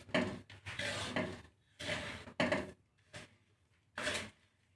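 Millet-and-glutinous-rice seed mix being stirred and scraped in a pan while dry-roasting over a low flame, in about five irregular scraping strokes with short pauses between them.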